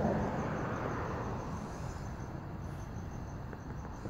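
A cricket chirping steadily in short, high, evenly spaced pulses, several a second, over a low background rumble.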